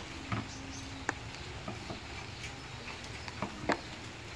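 Knife cutting a potato on a cutting board: a handful of sharp, irregular knocks.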